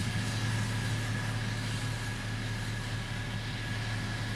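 Diesel engine of heavy road-building machinery, such as a motor grader or road roller, running steadily with a constant low hum.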